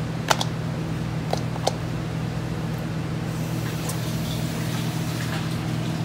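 Steady low hum with three short, sharp clicks in the first two seconds, from cooked lobster pieces being handled and pulled apart. A soft hiss comes in about halfway.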